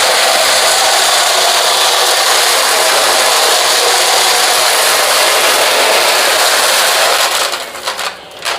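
Dirt Devil VersaVac vacuum cleaner running steadily, then switched off about seven seconds in, followed by a few knocks.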